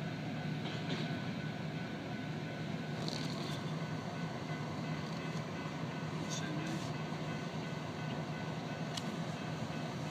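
Double-stack intermodal freight train cars rolling along the rails as the end of the train passes and moves off, a steady rumble with a few short clicks.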